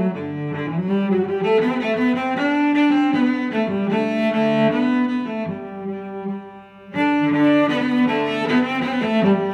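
Background music: a bowed string melody, cello-like, playing slow sustained notes. It fades briefly about six seconds in, then comes back in full.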